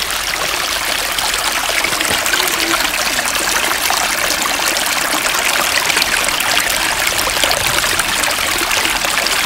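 Small woodland brook babbling steadily with a loud, close, splashing rush of water.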